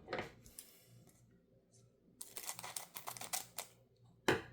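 Pokémon booster pack foil and cards handled, crinkling and rustling in two stretches of quick, dry bursts with a lull of about a second between them.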